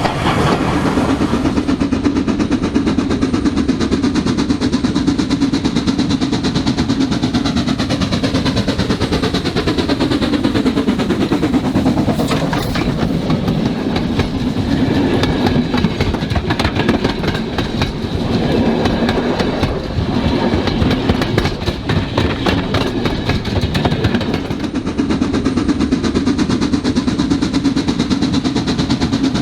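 Model railway train running on the layout's track, wheels clicking rapidly over the rails over a steady motor hum. Around the middle, the pitch of the running falls and then rises again.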